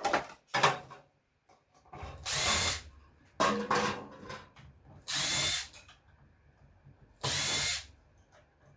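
Power drill spinning in three short bursts of about half a second each, backing screws out of the unit's metal casing. Sharp knocks near the start, and a clatter of handling noise in the middle.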